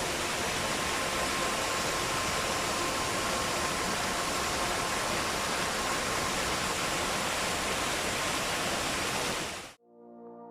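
Waterfall, running high with rainwater, rushing steadily; the sound cuts off abruptly near the end and slow brass music begins.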